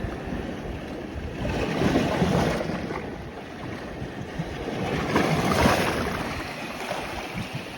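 Sea waves washing in the shallows, swelling twice, with wind buffeting the microphone.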